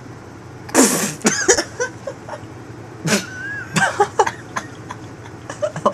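A loud, high-pitched vocal squeal about a second in, followed by several shorter squeaky cries, one with a drawn-out whistly glide.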